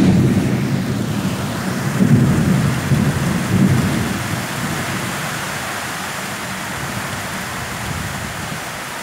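Heavy rain pouring steadily, with thunder rumbling through the first few seconds and then fading, leaving the even hiss of the downpour.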